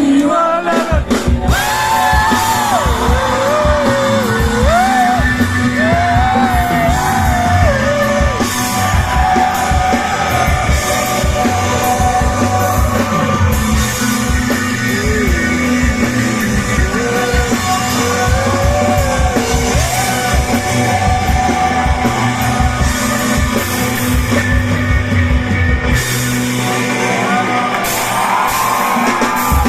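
Live rock band playing: guitars, bass and drums, with a sung vocal line over much of the first two-thirds, recorded on a phone in a large hall.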